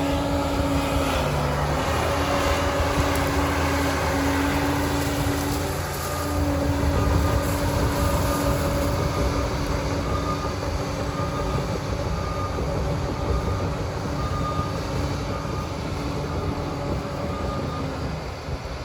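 Liebherr 746 crawler dozer running under load, a heavy diesel drone with a steady whining tone that grows louder about six seconds in. A faint high beep repeats about once a second through the second half.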